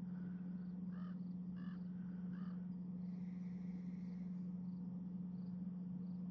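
A steady low hum with a bird calling three short notes about a second in, over faint, continuous insect chirping.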